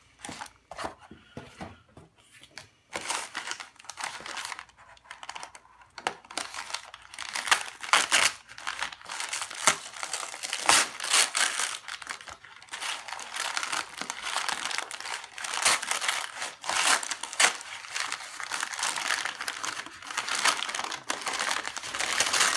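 A mailed package being unwrapped by hand: its wrapping crinkles and crackles almost without pause, after a sparser first few seconds.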